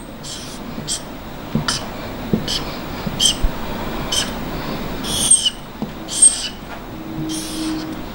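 Marker pen squeaking and scratching across a whiteboard in a series of short strokes, roughly one a second, as small circles are drawn.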